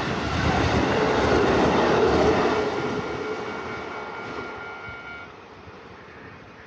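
Keisei electric train running past over the level crossing: loud wheel and running noise for the first couple of seconds, then fading steadily as the train moves away. A couple of steady high tones hold for a few seconds and cut off abruptly about five seconds in.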